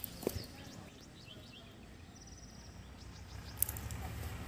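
Outdoor ambience: a few faint short bird chirps and a brief rapid high trill, with a low rumble building near the end.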